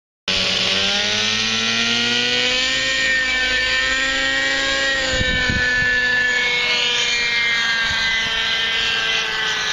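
Thunder Tiger 30 nitro RC helicopter in flight: its glow engine and rotor make a steady high whine that cuts in abruptly, the pitch rising and falling gently as it manoeuvres and sagging a little near the end as it moves away.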